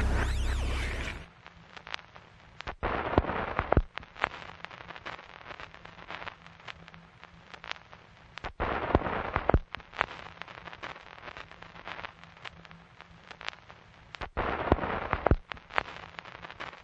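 Background music fades out about a second in, followed by irregular sharp pops and short crackling bursts over a faint low hum.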